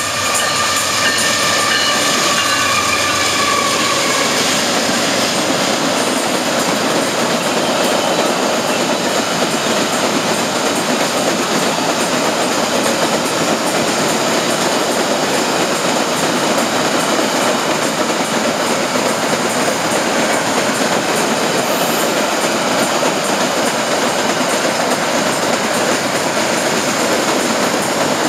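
Ore train's hopper wagons rolling past close by, a steady, loud clatter of steel wheels on the rails. In the first few seconds the last of the locomotive's horn chord fades out.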